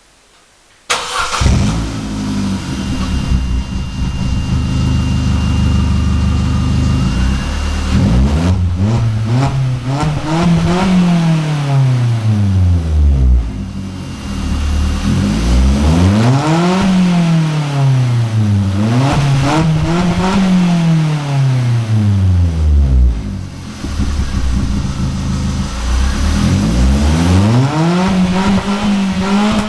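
Opel Astra 1.4 inline-four petrol engine heard through its exhaust. It idles steadily at first, then is revved up and let fall back several times.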